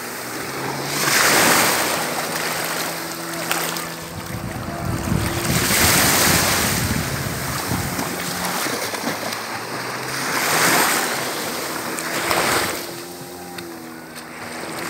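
Small sea waves washing onto a sandy shore, the noise swelling about every four to five seconds, with wind buffeting the microphone and a faint low hum underneath.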